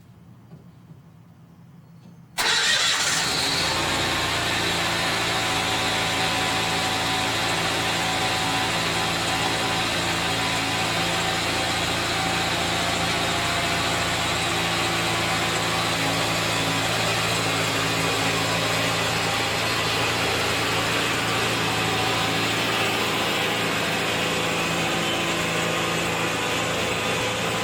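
The hydraulic power unit's engine on a 15-inch gauge critter locomotive comes in abruptly about two seconds in, then runs steadily at an even speed.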